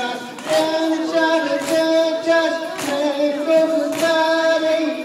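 A noha, a Shia mourning lament for Muharram, chanted by high voices in long held notes. A sharp beat falls about once a second in time with the chant.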